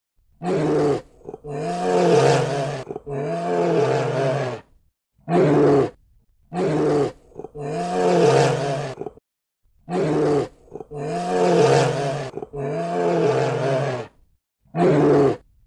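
A large animal giving a series of about ten loud, deep calls, each half a second to a second and a half long, with short gaps between them. The calls come in groups that repeat in much the same pattern.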